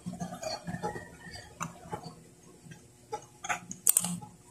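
Faint, scattered low sounds, then a couple of sharp clicks a little before four seconds in, as the camera is handled.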